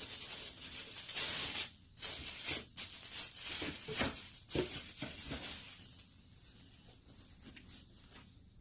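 Packing paper crinkling and rustling as it is handled in a shoebox, in repeated crackly bursts that die down after about five or six seconds.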